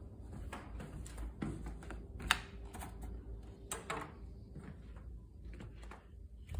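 Footsteps and handling noise of a hand-held phone carried through a house: irregular soft knocks and clicks over a low rumble, with one sharper click about two seconds in.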